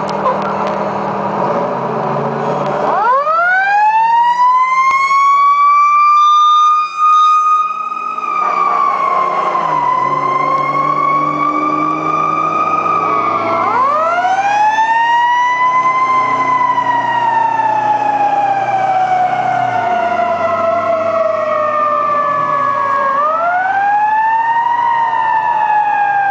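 Fire truck siren winding up to a high wail about three seconds in and then slowly falling in pitch, wound up again twice more, with the truck's engine running underneath.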